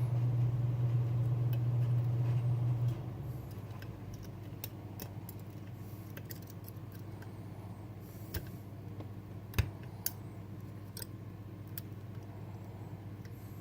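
Scattered light metallic clicks and ticks of lock picks working in a Bellock cam lock, the sharpest about two-thirds of the way through. A steady low hum runs for the first three seconds, then stops.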